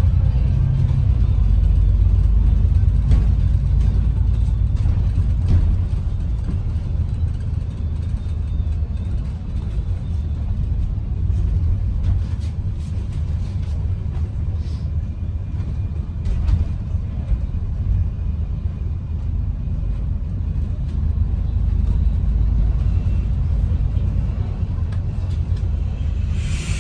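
Interior of an ADL Enviro 400 MMC double-decker bus on the move: steady low engine and road rumble with light rattles, ending with a short burst of air hiss.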